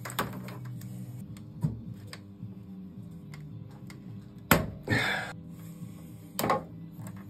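Hand work on 35 mm cables and tools at an open three-phase distribution board: scattered sharp clicks and knocks, the loudest a knock about four and a half seconds in followed by a brief rasping noise, with another knock near the end. A steady low hum runs underneath.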